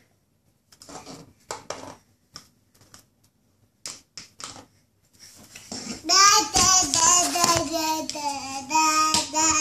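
A toddler making wordless sing-song vocal sounds: a few brief sounds in the first half, then from about halfway a long stretch of pitch-bending, sing-song babbling.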